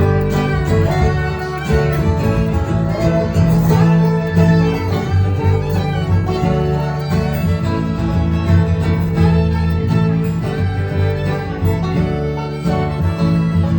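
Live bluegrass string band playing the instrumental opening of a song right after the count-in, with fiddle and guitar over a steady bass.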